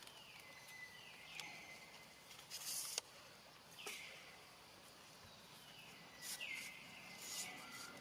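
Faint animal calls, four or so, each sliding down in pitch and then holding steady for a moment. Between them come two short hissing rushes, the first and loudest ending in a sharp click about three seconds in.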